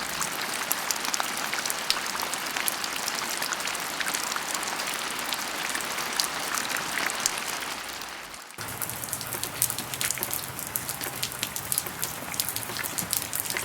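Steady rain with many small drop patters, as a sound effect. About eight and a half seconds in it cuts abruptly to a different rain recording with sharper, more separate drops.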